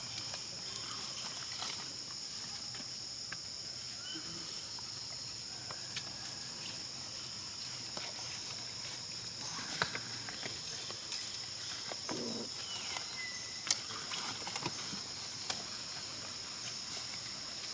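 Steady, high-pitched drone of insects, with a few short animal calls over it. One call near the end glides down in pitch and then holds. Scattered light clicks.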